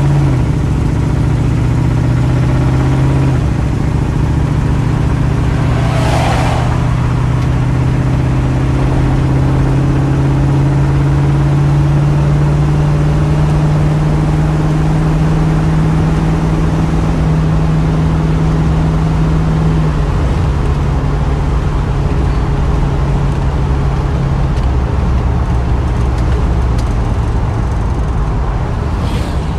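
1973 Dodge Dart Swinger's 318 V8 with dual exhaust running under way at road speed, heard from inside the car, with tyre and wind noise beneath it. The engine note climbs slowly as the car gathers speed and eases off about twenty seconds in; a brief rushing sound passes about six seconds in.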